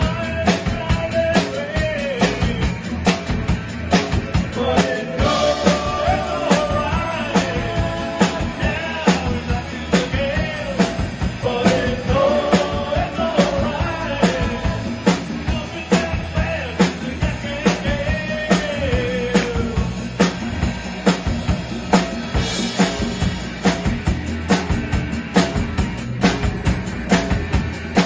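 Live rock band playing: a drum kit keeps a steady beat under electric guitars while a man sings lead into the microphone.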